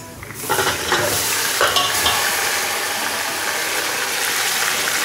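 Marinated chicken dropping into hot ghee and softened onions in an aluminium pot: a loud sizzle breaks out about half a second in and settles into a steady frying hiss as the chicken starts to sear. A few clatters sound in the first two seconds.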